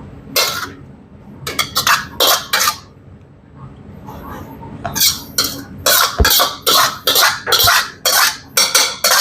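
A metal cooking utensil scraping and clattering against a pan in short, repeated strokes. There are a few strokes, a pause, then a steady run of about two to three a second from about five seconds in.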